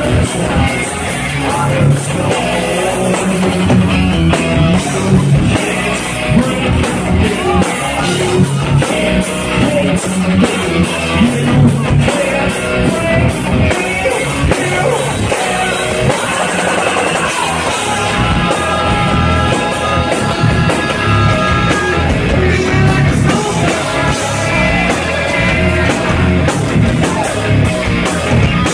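Rock band playing live at full volume: drums, electric guitar and bass guitar, with a singer on the microphone. From about 18 to 24 seconds in, the guitar holds sustained notes over the beat.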